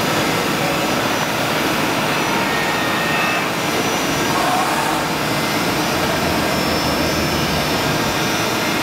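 DMU 70 eVolution five-axis machining centre running as its swivel rotary table tilts up to vertical: a steady whirring machine noise with a few faint, changing whines.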